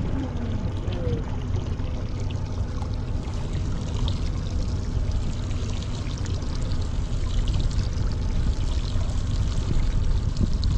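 Water pouring and trickling steadily, with many small splashy ticks over a low rumble underneath.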